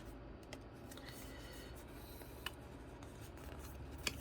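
Faint rustling as Pokémon trading cards and their pack are handled, with three light clicks, the loudest near the end.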